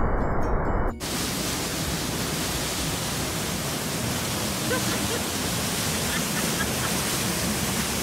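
Günpınar waterfall running, cut off about a second in by the steady, full hiss of water rushing close-up through a narrow stone channel around a person sitting in it.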